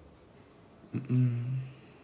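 A man's short closed-mouth hum, a low "mmm" held at one pitch for under a second, about a second in.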